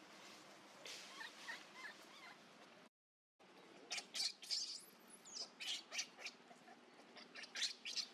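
Monkeys calling with many short, high squeaks and chirps, some bending in pitch. The sound cuts out completely for about half a second around three seconds in.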